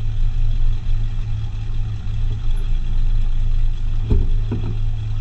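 Car engine running steadily at low revs, with two short knocks about four seconds in.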